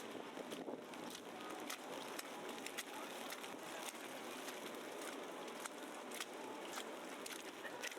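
Footsteps crunching on snow at a steady walking pace, about two steps a second, over a constant background hum of the city.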